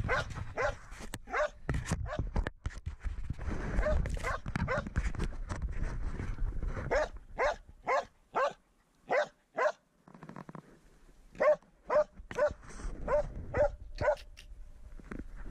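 Norwegian elkhound barking steadily at a wild boar, about two sharp barks a second: baying, the hunting dog's signal that the boar is held at bay. Low rustling and handling noise runs under the first half, and the barking pauses briefly about ten seconds in.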